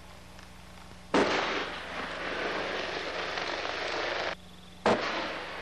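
Dynamite blast in sandstone: a sharp bang about a second in, followed by about three seconds of rock and debris coming down, then a second bang near the end that dies away. The blast clears overburden rock from above the fossil.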